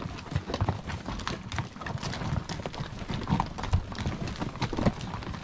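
Several horses' hooves clopping on a dry, rocky dirt trail in an uneven walking rhythm.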